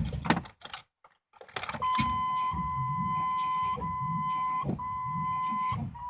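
1996 Chevy 1500 5.7 V8 cranking slowly and unevenly on a low battery without starting, with a steady warning-chime tone over it. A few loud sharp pops in the first second are the bang and popping the owner can't explain, in an engine he says is not getting spark. It stops for a moment about a second in, then goes on cranking.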